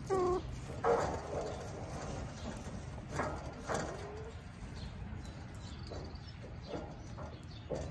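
Hens clucking and giving short pitched calls, a few at a time, louder in the first four seconds and fainter toward the end.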